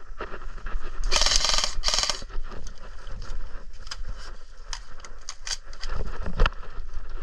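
Airsoft gun firing two short rapid bursts about a second in, followed by scattered sharp clicks and knocks.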